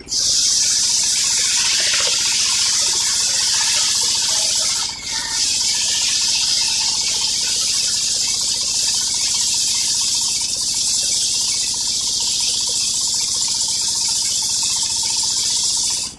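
Circular sawmill blade cutting lengthwise through an old coconut-palm log: a loud, steady, high hissing rip that starts suddenly, dips briefly about five seconds in, and stops suddenly.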